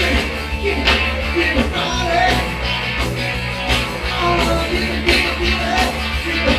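Live rock band playing an instrumental passage: electric guitar over bass and a steady drum beat.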